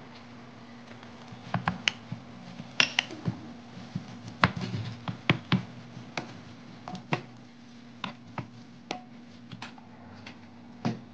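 Wooden spoon stirring a chunky chicken and vegetable filling in a nonstick pan, clacking against the pan in irregular sharp clicks and taps. They are busiest in the middle and sparser toward the end, over a steady low hum.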